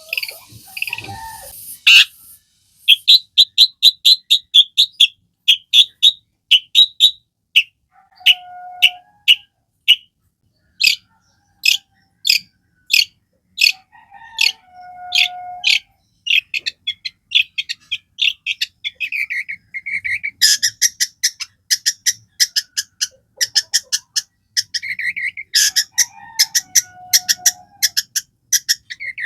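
Long-tailed shrike (cendet) singing loudly: long runs of short, sharp repeated chips and fast trills, mixed with mimicked calls of other birds.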